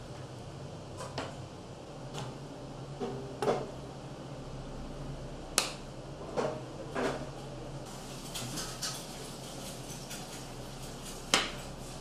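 Cutlery and dishes clinking and knocking against wooden pizza boards and a table: a handful of separate sharp clicks and knocks, the sharpest about halfway through and another near the end, over a low steady hum.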